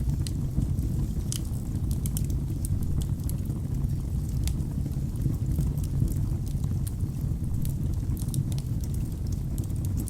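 Wood fire burning in a fireplace: a steady low rumble of the flames with scattered sharp crackles and pops from the logs.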